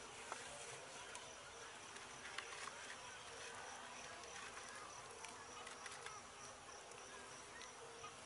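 Night insects chirping steadily, a high pulsing trill with a lower pulsing note beneath it, plus a few faint clicks.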